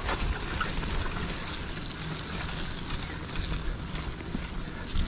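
Mountain bike rolling along a dirt trail: a steady rumble of tyres on dirt and wind on the microphone, with small scattered ticks and rattles from the bike.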